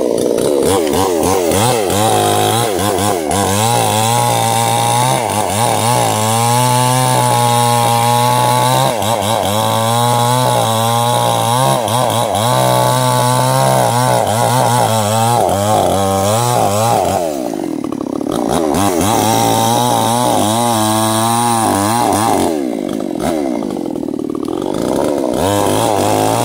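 Two-stroke Stihl chainsaw running at high revs and cutting into sengon wood, its pitch wavering under load. About two-thirds of the way in, and again near the end, the engine drops off and then revs back up.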